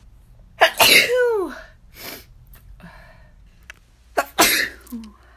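A person sneezing twice: the first sneeze about half a second in, ending in a voiced cry that falls in pitch; the second, shorter, about four seconds in.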